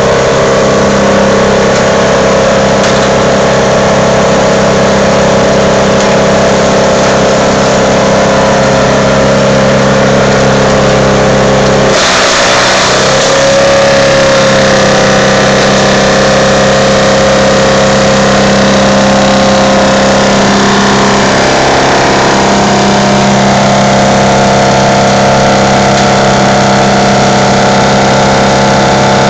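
Towable wood chipper running loudly at working speed as a tree trunk and branches are fed through it, a steady engine drone with the whine of the cutter. About twelve seconds in there is a burst of crunching noise as the wood is chewed and the engine note drops under the load, then recovers.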